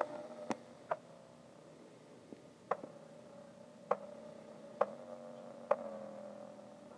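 About six sharp ticks at uneven gaps, over a faint, low held tone.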